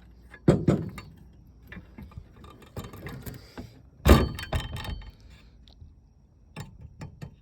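Knocks and clinks of metal dishwasher door panels and parts being handled and set down, with two sharp loud knocks about half a second and four seconds in and lighter clicks between.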